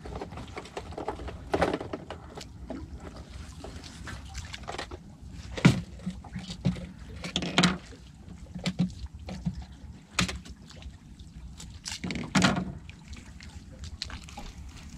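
Water lapping and sloshing against the hull of a small open boat, with several short, louder slaps at irregular intervals.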